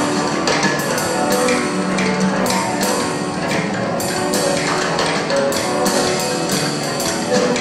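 A small band playing live: electric guitar notes over hand percussion, with frequent sharp hits throughout.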